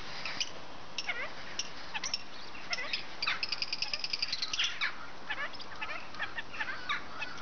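Parakeets chirping and calling: many short high chirps, with a fast rattling trill about three seconds in and a few falling calls.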